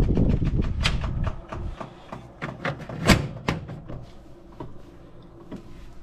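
Vintage window air conditioner switched off at its push-button control, its running noise dying away over the first second and a half. After that come scattered knocks and clicks, the loudest about three seconds in.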